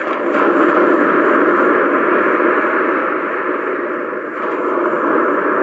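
Cheap aurora projector lamp's small built-in speaker playing one of its stock ambient sound tracks: an even rushing noise with no clear tone, swelling louder at the start and again about four seconds in.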